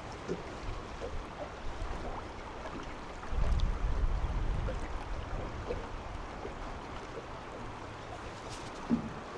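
River current running as a steady rushing noise, with a louder low rumble for about two seconds starting a little over three seconds in and a short knock near the end.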